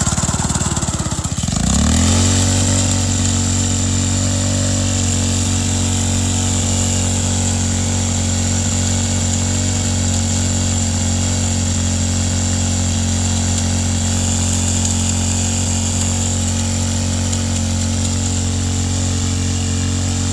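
Honda 160cc single-cylinder pressure washer engine revving up about a second and a half in, then running steadily at high speed, held flat out in an attempt to blow it up.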